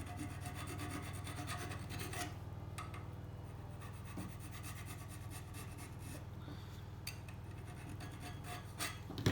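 Hand file rasping back and forth on a small bicycle hub part, shaping it slightly conical. Quick, dense strokes for the first couple of seconds, then slower, more spaced strokes.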